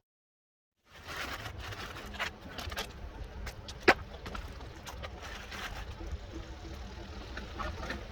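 After a second of silence, scattered clicks and knocks of hand work on a car interior during seat removal, one sharp knock about four seconds in, over a steady low rumble like an idling engine.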